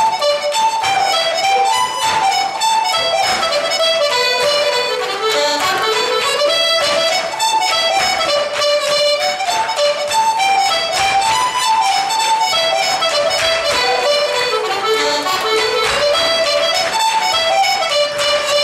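Irish traditional dance tune played by a group of accordions and fiddles, a lively melody in runs that rise and fall and repeat every few bars over a steady beat.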